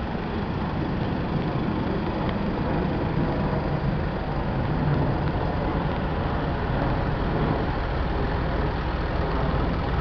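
Steady road traffic noise from a queue of cars and small trucks moving slowly or standing with their engines running, close beside the pavement.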